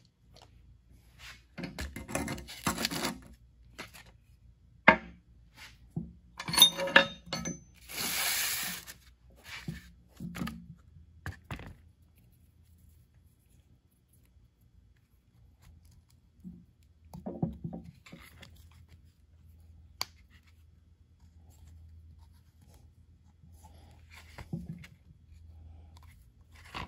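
Hands working new hydraulic cylinder seals onto a metal gland on a cardboard-covered bench: scattered clicks, knocks and rubbing, with a longer scrape about eight seconds in. After about twelve seconds only a few small knocks sound over a faint steady low hum.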